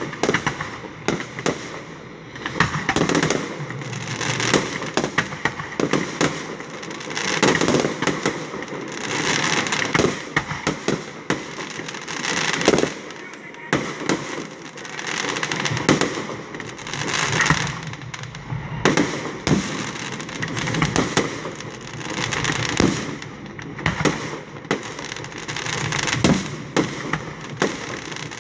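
Aerial fireworks going off in a continuous barrage: many sharp bangs, often several a second, over swells of sparkling crackle that rise and fall every couple of seconds.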